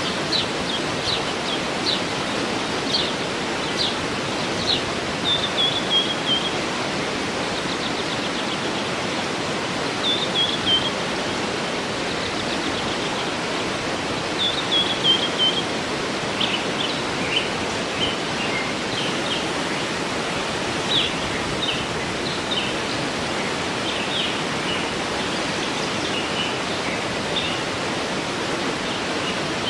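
Waterfall giving a steady sound of falling water, with songbirds chirping over it throughout, including a few short descending trills.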